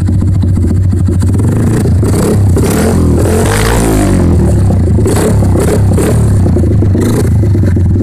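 Pit bike's single-cylinder four-stroke engine running through an aftermarket performance exhaust, heard loud and close at the pipe's outlet. The engine holds a steady note, with the revs rising and falling between about two and five seconds in.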